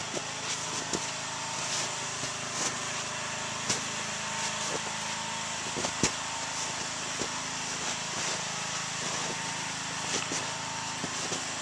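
Small portable generator engine running steadily, powering the wood stove's blower, with scattered sharp clicks over it.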